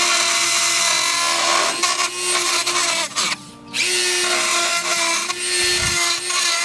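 Corded handheld rotary tool grinding at a bolt hole in the car's steel body, enlarging it: a steady high-pitched whine with a harsh grinding hiss. The tool winds down a little after three seconds in and starts up again about half a second later.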